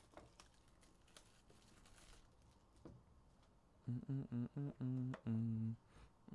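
Faint clicks and rustling of a trading-card hobby box being unwrapped and opened, then about four seconds in a man hums a short tune of quick, even notes ending on a longer held note.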